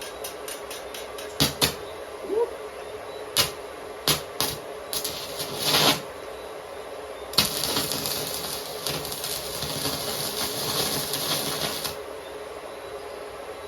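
Stick (MMA) arc welding with an Ingco 160A inverter welder. Several sharp pops and scratches as the electrode is struck to start the arc, then about seven seconds in the arc holds as a steady crackle for four to five seconds before it breaks off.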